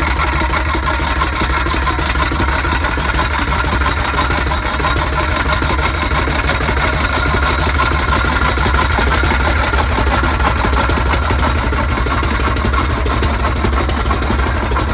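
Vintage Holt engine running steadily, with a deep low hum and an even, fast run of firing beats.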